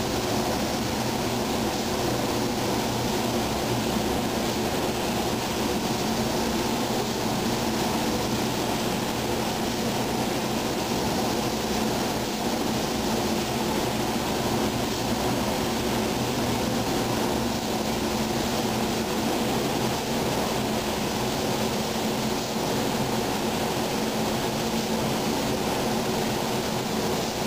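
Steady rushing drone of a spray booth's ventilation with the hiss of compressed air through a gravity-feed spray gun as clear coat is sprayed; a low hum runs underneath and the sound does not change.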